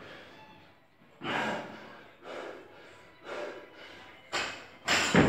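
A winded man breathing hard through a workout: loud, noisy breaths about once a second while he sets up over a barbell. The loudest, sharpest breath comes near the end.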